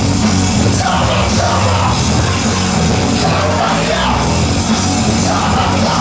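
Loud music with a heavy bass line and shouted vocals, played at full volume at a DJ sound clash.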